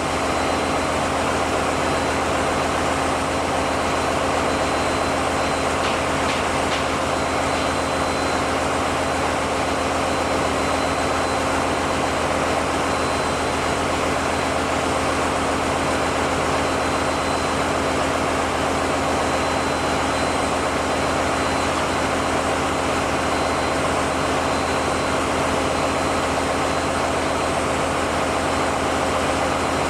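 Steady, loud drone of running diesel generator engines, an unbroken machinery hum with a constant whine on top.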